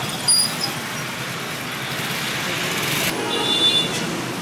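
Steady street traffic noise from passing vehicles, with a few short high squeaks.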